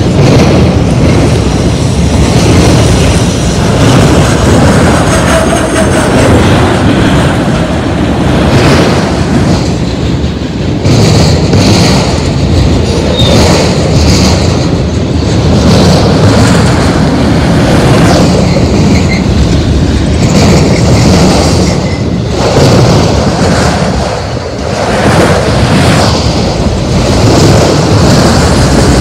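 Autorack freight cars rolling past close by: loud, steady rumble and rattle of steel wheels on rail, broken by repeated clacks as the wheel sets pass.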